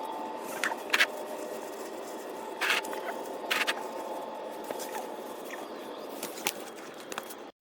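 Engine oil draining from the loosened oil filter into a drain pan: a steady trickling stream with a few sharp clicks, cutting off suddenly near the end.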